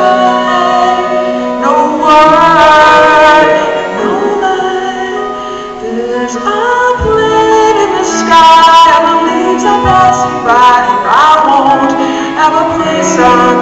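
Instrumental break played live on stage: a harmonica solo with wavering, bending notes over strummed acoustic guitar.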